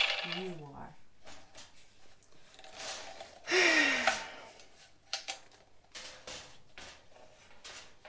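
Einhell TC-MA 1300 wall chaser's motor winding down with falling pitch as it coasts to a stop within the first second. Then the tool is handled and turned over: scattered clicks and knocks, with a louder scraping burst about three and a half seconds in.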